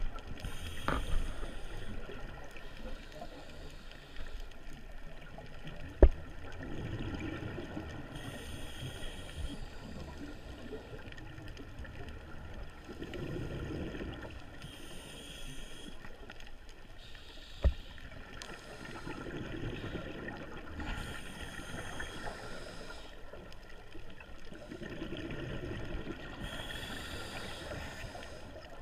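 Scuba regulator breathing heard underwater: a burst of exhaled bubbles, then the hiss of an inhale, repeating about every six seconds. Two sharp knocks stand out, about six and eighteen seconds in.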